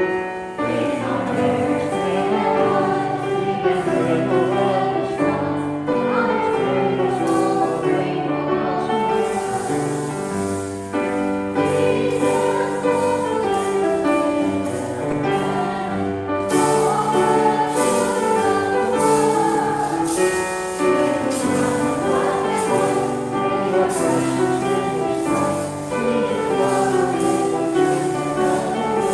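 Church music: slow, sustained chords with singing voices.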